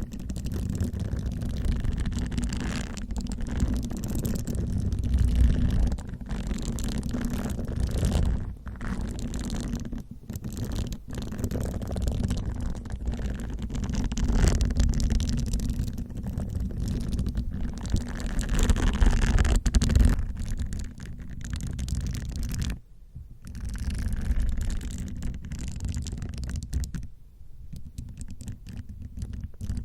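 Facial cleansing brush bristles rubbed and scratched close to the microphone, a continuous scratchy brushing over a deep rumble. It stops briefly about 23 s in and goes quieter near the end.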